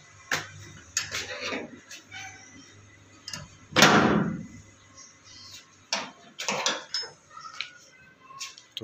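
A door's padlock and sliding metal bolt being undone and the door pulled open: a run of metallic clicks and knocks, with one louder clank lasting about half a second about four seconds in, then scattered lighter knocks.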